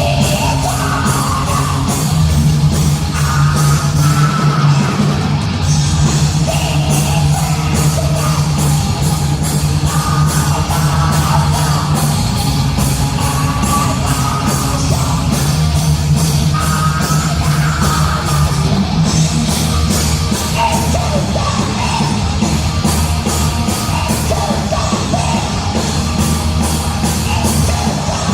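Live heavy metal band playing loudly: fast, dense drumming under distorted guitars and bass, with a shouted, growled vocal over it at intervals.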